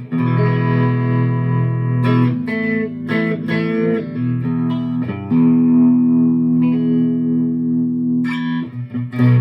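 Electric guitar played through a Mooer Trelicopter tremolo pedal with its bias knob turned all the way down. Strummed chords are left to ring, with a new chord every two to three seconds.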